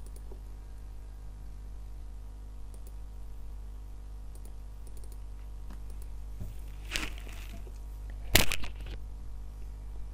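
Light computer keyboard and mouse clicks over a steady low hum, with two louder brief knocks about seven and eight and a half seconds in, the second the loudest.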